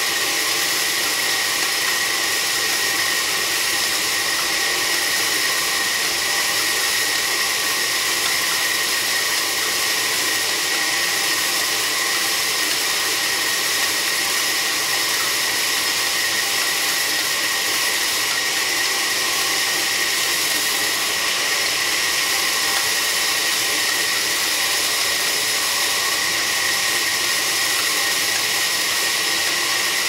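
Sawmill band saw running and cutting through a large log: a steady hiss with a constant high whine.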